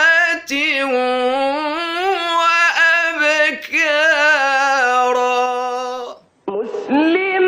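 A solo male voice chanting Quran recitation in a melodic, ornamented style, holding long drawn-out notes that waver with vibrato and slide between pitches. It breaks for a quick breath about six seconds in, then goes on.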